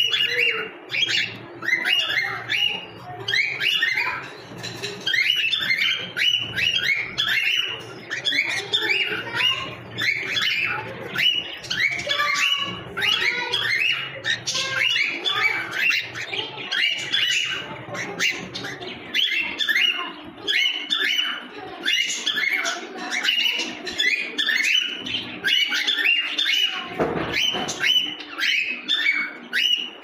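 Cockatiels chirping and chattering in a quick, unbroken stream of short calls, several a second.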